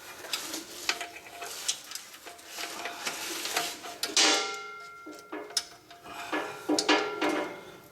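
Irregular metallic clicks, scrapes and rattles of a steel parking brake cable end and rear brake hardware being worked by hand onto the parking brake lever. A few clanks ring briefly, the loudest about four seconds in and near the end.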